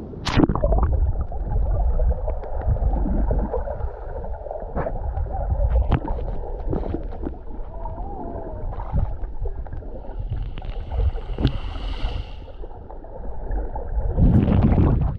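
Sea water heard with the microphone submerged: a muffled low rumble with scattered clicks and knocks. A splash as it goes under just after the start, and a louder burst of water noise as it comes back up near the end.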